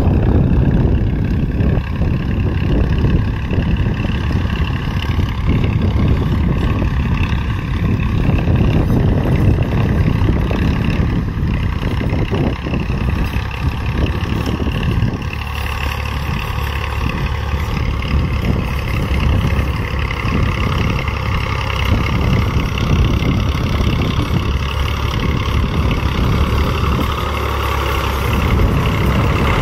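Farm tractor's diesel engine running steadily under load while pulling a tine cultivator through ploughed soil.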